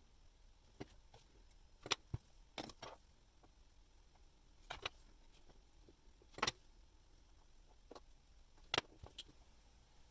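Small, sharp clicks and taps of metal watchmaker's tools handling parts of a watch movement on the bench, about ten at irregular intervals, a couple coming in quick pairs.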